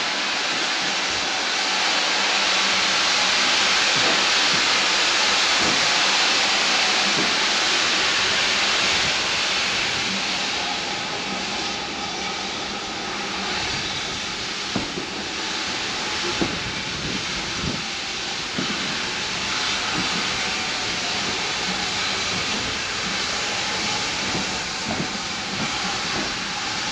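Steam locomotive hissing steam, loudest for about the first ten seconds and then easing. Scattered knocks and clicks from the train run through the second half.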